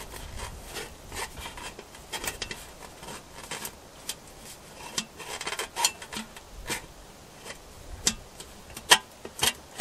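Light metallic clicking and scraping as a stovepipe damper's rod is worked through the holes in a sheet-metal flue pipe, with a few sharper ticks near the end as it lines up and passes through.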